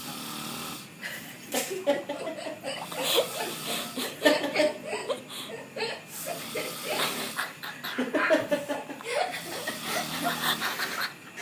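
A person laughing in repeated short bursts, chuckling and snickering.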